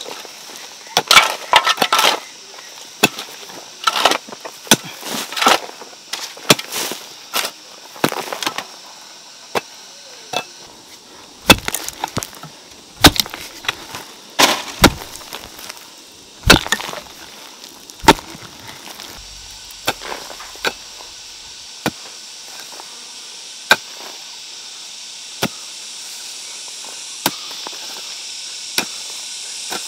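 Wood being chopped: irregular sharp blows and cracks, coming thick and fast at first, then thinning to occasional single knocks. A steady high hiss grows louder toward the end.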